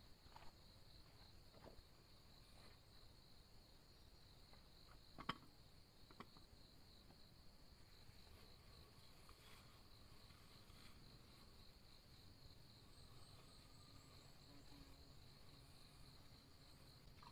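Faint, steady chirring of insects in forest at night: one high, fast-pulsing trill that runs on unbroken. A few soft clicks sound over it, the sharpest about five seconds in.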